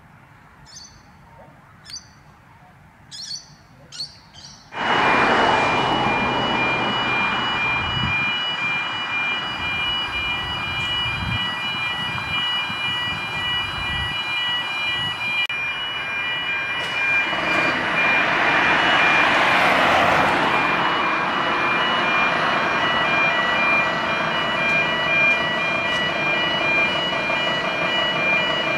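Birds chirp in a quiet spell. About five seconds in, a fire truck's loud, steady mechanical noise starts abruptly, with several high steady tones over it, and swells once part-way through.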